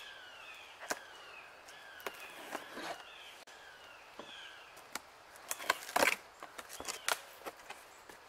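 Cardboard box being opened by hand: the flaps are pulled up with scattered sharp crackles and scrapes, the loudest cluster about six seconds in. Birds sing in the background with repeated short downward-sliding chirps.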